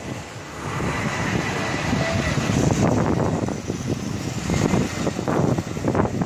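Jet engines of a Cebu Pacific Airbus A320-214 (CFM56 turbofans) on short final, a steady rush with a faint high whine. The sound grows louder about a second in as the airliner flares low over the runway just before touchdown.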